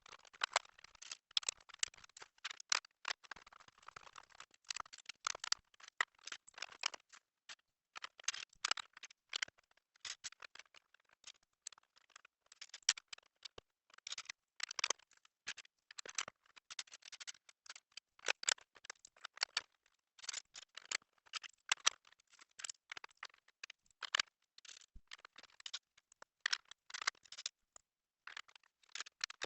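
Plastic Lego bricks clicking and rattling as they are handled and pressed together, a rapid, irregular stream of small sharp clicks with brief gaps.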